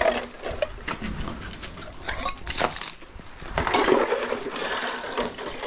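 Clicks, knocks and rattles of buckets and a feed scoop being handled, thickening into a denser rustling clatter about three and a half seconds in.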